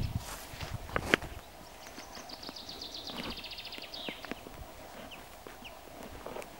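A songbird sings a fast trill of high notes that steps down in pitch and lasts about two seconds, starting about two seconds in. In the first second or so there are low thumps and one sharp click close to the microphone.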